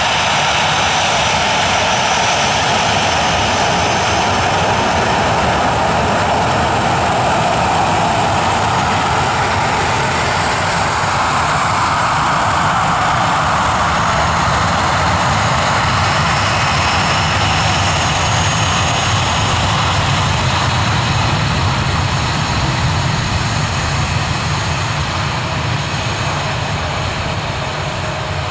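Boeing 737-800's CFM56-7B jet engines running at taxi power as the airliner taxis past: a steady rush of engine noise with a high whine. The sound grows fainter over the last few seconds as the aircraft moves away.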